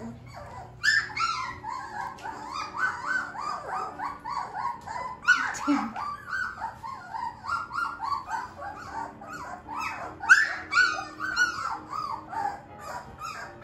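Young puppies, 19 days old, whimpering and squeaking: a rapid string of short, high, falling cries, several a second, beginning about a second in.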